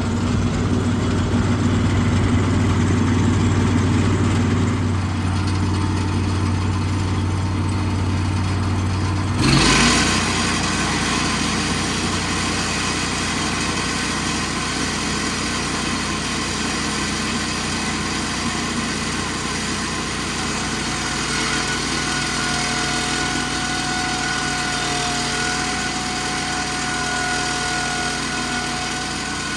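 Gas engine of a board edger running steadily. About ten seconds in the sound changes abruptly to a different steady engine note, and a faint steady whine joins later.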